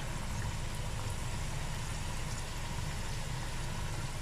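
Batter-coated potato bondas deep-frying in hot oil in a kadai: a steady sizzling and bubbling.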